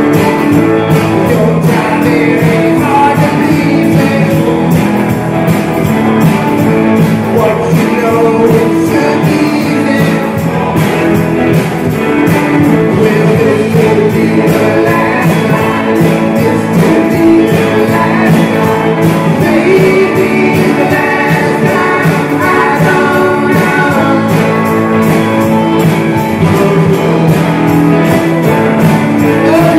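Rock and roll band playing loudly, with guitar, a steady drum beat and singing.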